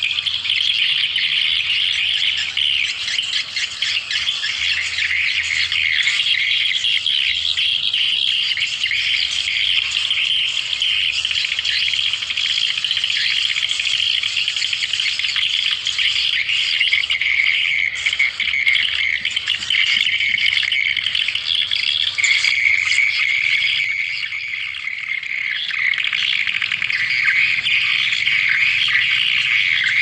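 Swiftlet calls: a dense, continuous high-pitched twittering chatter, the lure sound used to call swiftlets to a nesting house.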